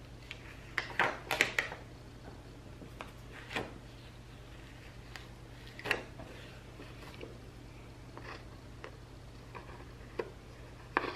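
Small scissors snipping off sticker edges that overhang a paper planner page, with the loudest cluster of snips about a second in. Then scattered faint paper rustles and taps as the page is lifted and turned.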